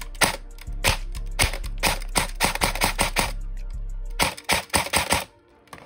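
Airsoft AK firing at a target, a string of sharp shots about two a second, then a quick rapid burst about four seconds in, over a steady low hum that stops as the burst begins.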